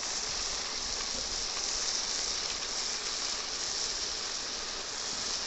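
Chicken pieces frying in oil in an iron kadai, sizzling steadily.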